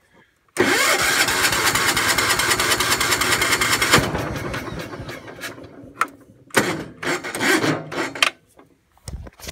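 Electric starter cranking a Kohler K321 single-cylinder engine for about three seconds, then trailing off, followed by a second, shorter crank; the engine does not start. The owner suspects no spark or a flooded carburettor.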